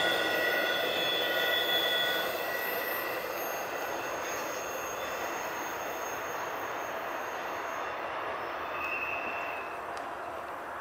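Double-stack intermodal well cars rolling away around a curve. Their wheel flanges squeal in several steady high tones that stop about two seconds in, then the wheel rumble fades, with one brief squeal again near the end.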